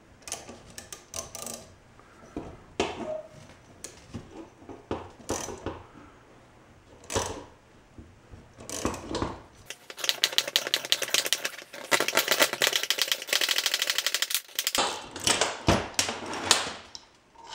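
Socket ratchet clicking as it turns the forcing screw of a three-jaw gear puller, drawing a ball bearing off an electric motor's rotor shaft. Scattered metal clinks and knocks come first, then about ten seconds in a run of rapid clicks that lasts about five seconds and stops suddenly, followed by a few more clinks.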